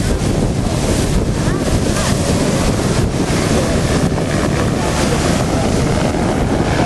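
Strong wind buffeting the microphone: a loud, steady rumble with sea noise mixed in.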